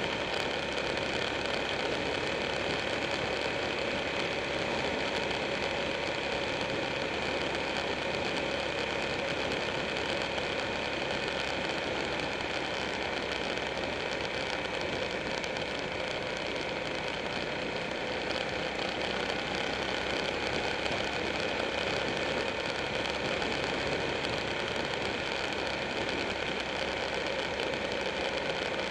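Buell 1125R's V-twin engine running steadily while riding at road speed, mixed with a constant rush of wind and road noise, heard from a camera mounted on the moving motorcycle.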